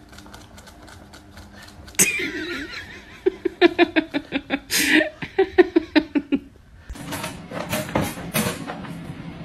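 A person laughing hard in a run of quick, pitched bursts, starting suddenly about two seconds in and stopping after several seconds. Near the end a noisier stretch with scattered knocks follows.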